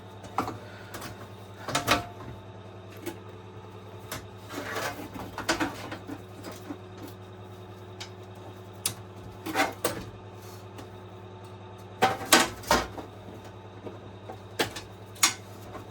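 Irregular clicks, taps and scrapes of the hob's plastic and metal parts being handled and worked loose during disassembly, loudest in a cluster of knocks about three-quarters of the way through.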